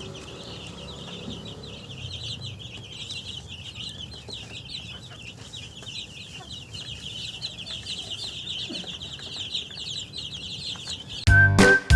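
A brood of chicks peeping, many high, short peeps overlapping in a constant chorus. Music with a whistled tune cuts in loudly near the end.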